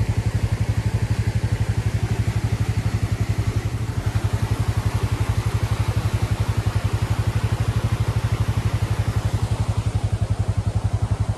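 Honda XR150L's single-cylinder four-stroke engine, fitted with a 222cc big bore kit and a 27mm carburettor, running on the move at a steady, low engine speed with an even, fast thumping beat.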